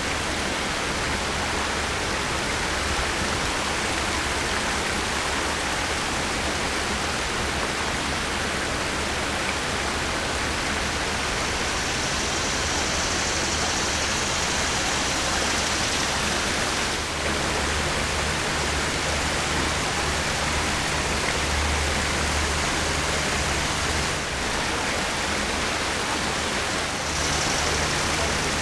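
Steady rushing of flowing water, like a small waterfall or stream, with a few brief dips in level.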